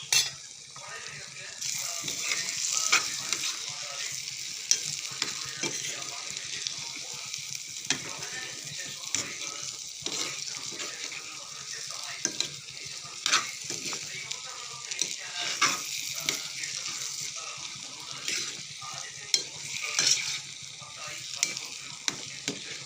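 Food sizzling in a pan while being stirred: a steady frying hiss, with frequent scrapes and clinks of a spoon against the pan.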